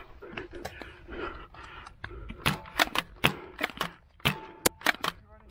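Foam-dart blasters firing in a Nerf war: a quick string of about nine sharp pops, starting about halfway in. Before them, rustling and scuffing as the player moves.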